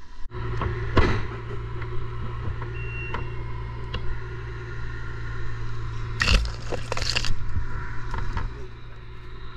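Steady low drone of the crane's engine running, overlaid with clicks and clatter from handling the crane's rigging chain and climbing rope, loudest in two short bursts about six and seven seconds in.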